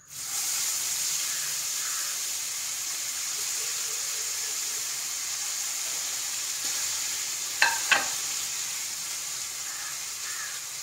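Marinated fish frying in hot coconut oil in a pan: a steady sizzle that starts suddenly as the fish goes into the oil. Two short sharp clicks about eight seconds in.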